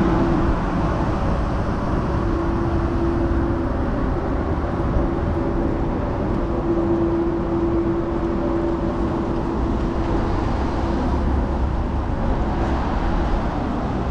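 A vehicle running steadily: a constant low rumble of motor and road noise, with a steady hum that fades in and out.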